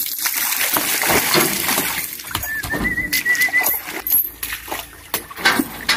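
Oil palm fruit bunches being pitched up into a dump truck's bed: irregular thuds and knocks. A bird's warbling call runs for about a second and a half in the middle.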